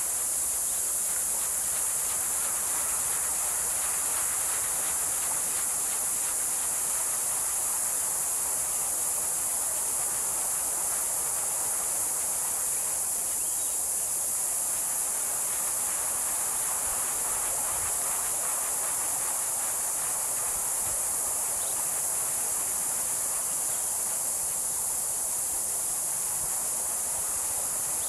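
A small 3 kW wind turbine's rotor spins in the wind, giving a soft rushing that swells and fades slowly with the gusts. Over it sits a steady high-pitched hiss, the loudest sound throughout.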